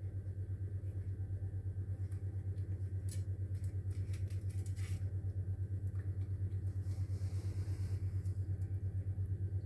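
A steady low hum with a fast, even pulse throughout, with a cluster of faint clicks about three to five seconds in, typical of a cat chewing its food.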